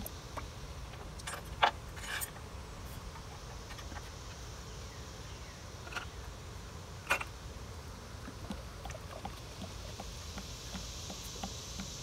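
A few sharp clicks and knocks from handling tools and a bucket of hydraulic oil, the loudest about one and a half seconds in and another about seven seconds in, over a steady low outdoor background.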